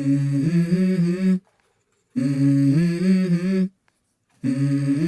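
Background song intro: a low hummed vocal phrase, stepping up in pitch, sung three times with short silences between.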